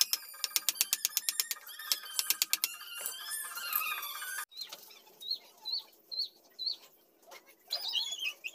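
Rapid, crisp clicks of a hand chisel cutting into wood, several a second. Partway through the sound cuts off abruptly and a small bird chirps one short note about twice a second, with a few more chirps near the end.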